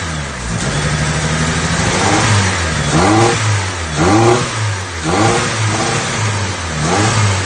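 Honda D16Y8 1.6-litre SOHC VTEC four-cylinder running on newly fitted 410cc Denso injectors and a custom ECU. The throttle is blipped in a series of short revs, about one a second, each rising and falling back toward idle.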